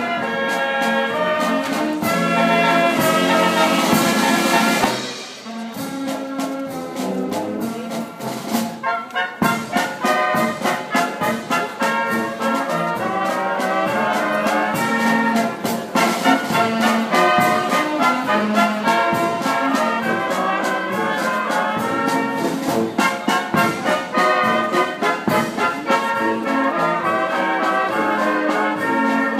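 A wind band of clarinets, trumpets and tubas plays with snare and bass drum. A loud held chord breaks off about five seconds in, then the band plays a rhythmic tune with regular drum beats.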